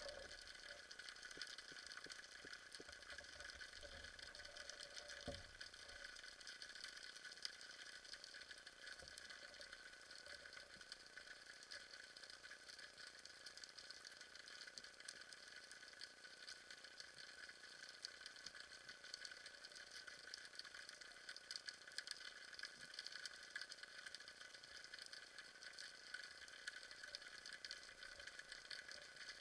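Near silence: faint underwater ambience with a steady hiss and a scatter of tiny clicks and crackles, and one soft low knock about five seconds in.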